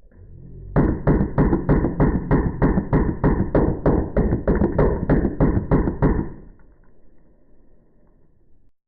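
Drozd Blackbird electronic BB gun firing a long string of shots, about three a second, for some five seconds before stopping.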